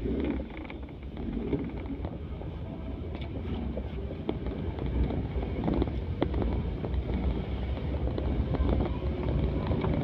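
Low, steady rumble of wind buffeting the microphone, with scattered small clicks and knocks.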